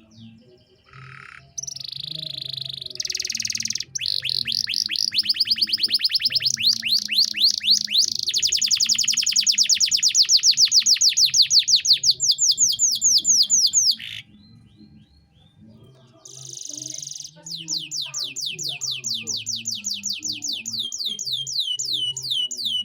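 Domestic canary singing long rolling trills: rapid repeated notes, each sweeping down in pitch, in two long phrases with a short pause about two-thirds of the way through.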